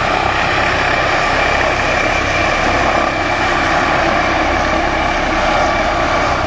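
Helicopter running close by: a loud, steady rush of rotor noise with a constant high turbine whine over it.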